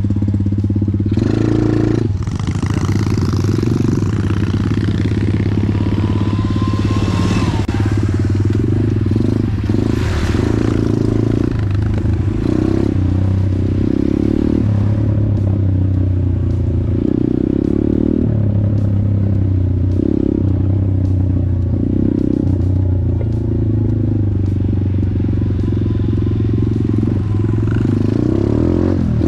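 Motorcycle engine running continuously, the low engine note steady throughout.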